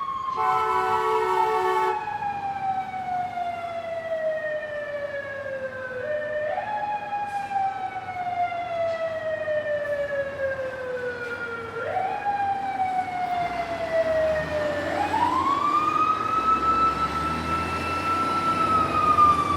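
Fire truck siren wailing: the tone slowly falls, then rises again about every six seconds, and near the end it climbs and holds high. The truck's horn blasts for about the first two seconds, and a low engine rumble comes in near the end.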